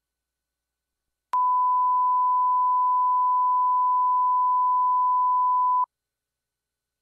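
A single steady pure beep tone that clicks on about a second in, holds for about four and a half seconds and cuts off abruptly: a test tone of the kind that leads into a broadcast programme tape.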